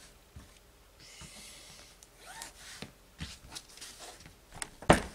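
A pencil scratching a line on paper, then paper and fabric rustling as the pieces are picked up and handled, with a few small clicks. About a second before the end there is one sharp, loud knock.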